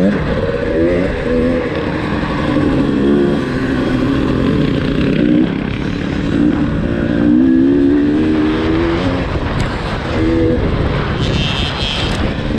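2018 KTM 300 TPI's fuel-injected single-cylinder two-stroke engine being ridden hard, its pitch climbing and dropping again and again as the throttle is opened and shut.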